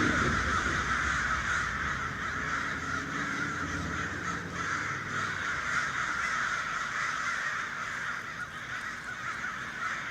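A large flock of birds calling all at once, a dense, steady din of overlapping calls.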